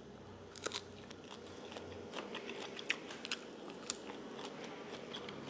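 A person chewing a mouthful of fresh green herbs and chicken close to the microphone: soft, irregular crisp clicks and crunches throughout.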